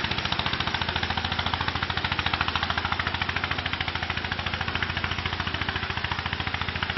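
Small tractor's 9 hp Slavia engine running hard under load while dragging a log: a steady, rapid chugging of evenly spaced firing knocks that does not let up.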